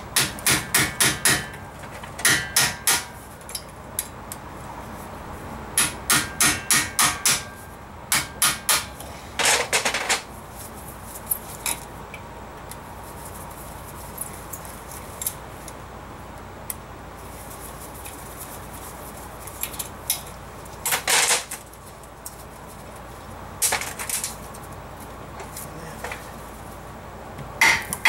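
Hammer blows on a 2004 Honda Pilot's brake rotor that is stuck on the hub, the rotor having no press-out screws to push it off. The blows come in quick runs of several a second, each ringing the steel disc, then fewer and more spread out later.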